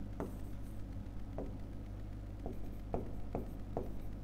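A pen on a writing board: a few faint, short ticks of the tip touching and stroking the surface, coming closer together in the second half as writing begins, over a steady low hum.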